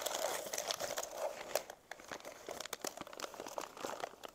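Crinkling and crackling of wrapping being handled and pulled off a small figurine, a dense run of crackles that stops near the end.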